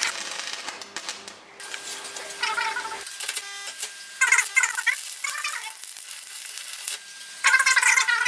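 Scrap iron pieces clinking and rattling against each other as they are handled, in several short spells.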